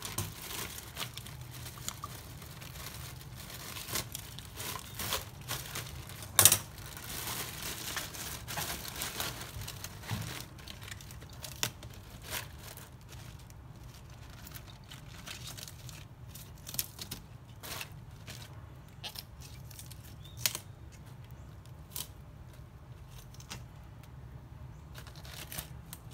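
Crisp tearing and crinkling of iceberg lettuce leaves being pulled apart by hand, in scattered short crackles, with one louder crack about six and a half seconds in. A steady low hum runs underneath.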